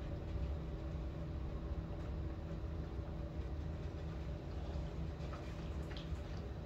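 Typhoon wind and rain heard from inside a building: a steady low rumble, with a few faint ticks near the end.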